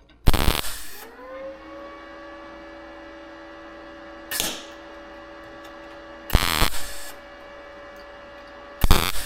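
Arccaptain MIG200 welder laying short tack welds to stitch a new patch panel into a car door's sheet metal. There are four brief bursts of arc noise, each under a second and about two seconds apart, with a steady hum in between that rises slightly in pitch after the first burst.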